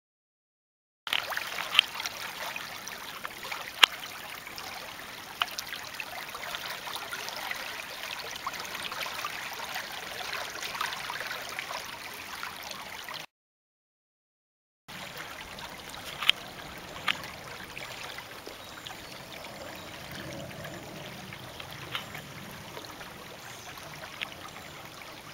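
Water rushing and trickling steadily, dotted with sharp clicks and pops. It starts abruptly and breaks off for about a second and a half of dead silence partway through, then resumes.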